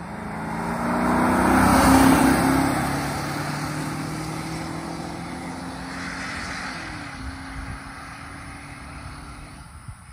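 1998 BMW 740iL's V8 engine and tyres as the car drives past, loudest about two seconds in. After that the engine note rises slightly as the car pulls away and fades.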